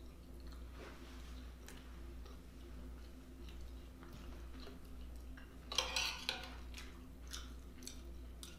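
Close-up eating sounds: quiet chewing and mouth clicks, with a brief louder burst of noise about six seconds in, over a steady low hum.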